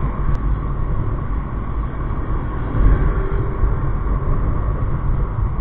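Motorcycle riding in traffic: a steady low engine and road rumble with wind noise, and a faint short tone a little past the middle.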